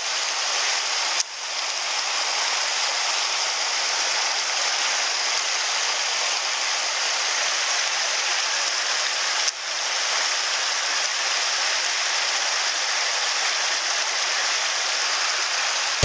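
Shallow rocky mountain stream running over stones, with a low weir spilling: a steady rush of water.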